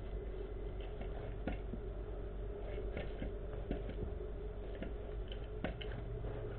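Irregular light ticks and clicks over a steady low hum, as a hamster noses and pushes a small paper tube across carpet.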